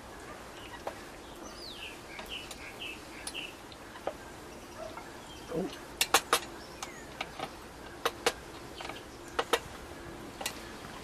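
Spoon clicking and scraping against an aluminium Swedish M40 mess tin as the hash is stirred, with a handful of sharp knocks in the second half. Small birds chirp in the background early on.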